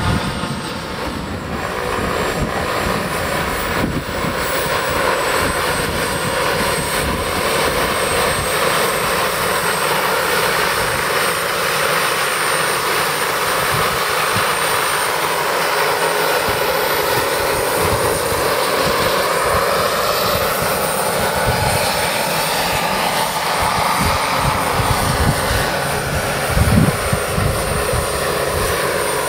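Radio-controlled scale model helicopter in flight: a steady motor and rotor sound with a high whine, its pitch sliding up and down as the helicopter manoeuvres. Wind thumps on the microphone near the end.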